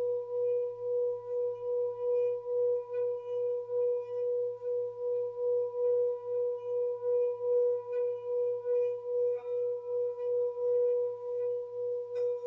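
Tibetan bell sounding one long sustained ringing tone with a faint higher overtone, swelling and fading in an even wobble about two and a half times a second.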